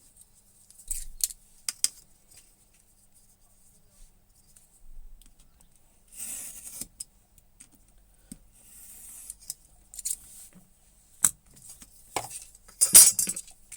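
Leatherworking hand tools at the bench: a few short scraping strokes of a blade on leather and sharp clicks of metal tools set down and picked up, with the loudest cluster of clicks near the end.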